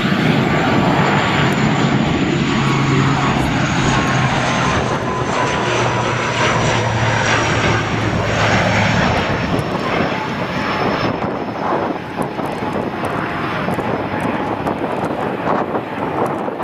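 ATR 72 airliner's two turboprop engines and propellers as it flies a low pass with gear down: a loud steady drone carrying a high whine and a mid tone that both slowly drop in pitch.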